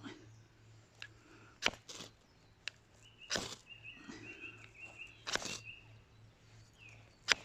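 A small ferro rod on a paracord survival bracelet is scraped hard against the back of a Swiss Army knife's saw blade to throw sparks onto feather sticks: about six short, sharp scrapes at uneven intervals, two of them a little longer. Birds chirp faintly behind.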